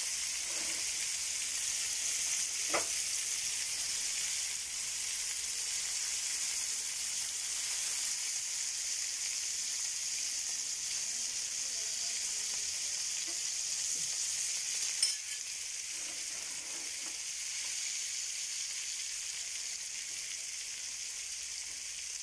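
Whole masala-coated fish shallow-frying in hot oil on a flat tawa, a steady sizzle, with a light click about 3 seconds in and another about 15 seconds in, after which the sizzle is a little quieter.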